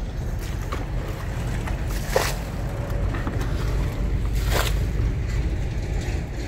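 Low rumble of wind buffeting the microphone, with two short splashes in shallow muddy water about two seconds and four and a half seconds in.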